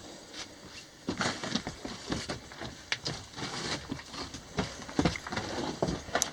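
Footsteps crunching and scuffing on loose rock and gravel: an uneven run of short steps.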